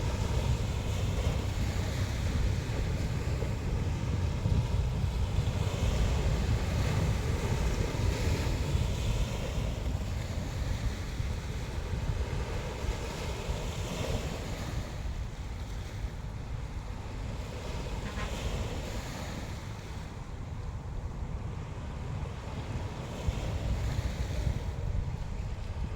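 Sea waves washing onto the shore with wind buffeting the microphone, a steady low rumble under hissing surf that swells now and then.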